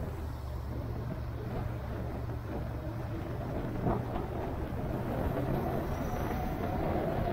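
A motor vehicle's engine running steadily with road and wind noise, as heard while riding along, and a brief knock about four seconds in.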